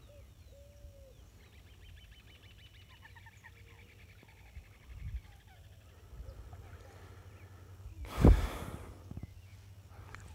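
Birds calling in the background: a few short chirps, then a fast trill lasting a few seconds. A steady low rumble runs underneath, and a short loud thump comes about eight seconds in.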